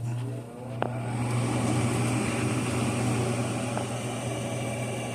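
Gas furnace draft inducer motor running with a steady hum at the start of a heating cycle, drawing the draft that the new pressure switch senses before the igniter comes on. A light click about a second in.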